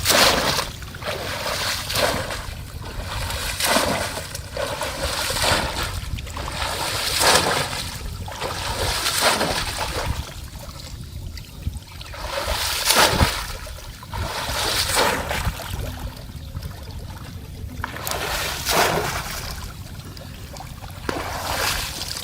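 Repeated splashing and sloshing of shallow water, a splash every second or two with short lulls: a bamboo polo cone trap being plunged into the water, again and again, by someone wading.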